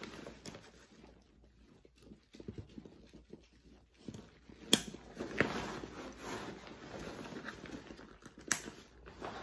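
Nylon backpack fabric and webbing straps rustling and scraping as compression straps are threaded under a pouch's daisy chains and folded back over. There are two sharp clicks, one about halfway through and one near the end.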